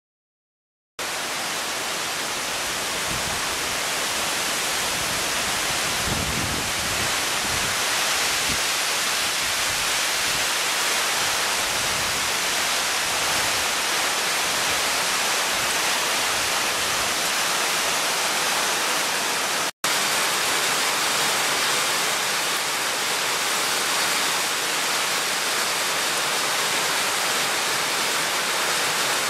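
Heavy monsoon rain pouring steadily on forest trees, a dense even hiss that starts abruptly about a second in and cuts out for an instant near the middle. A few low rumbles sound around six to eight seconds in.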